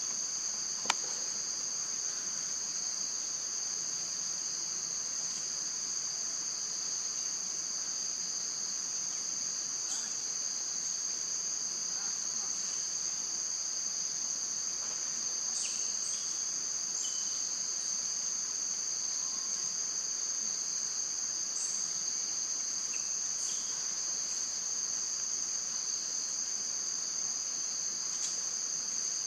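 Steady, high-pitched insect chorus that runs without a break. A single sharp click comes about a second in, and a few faint, short high calls are heard later on.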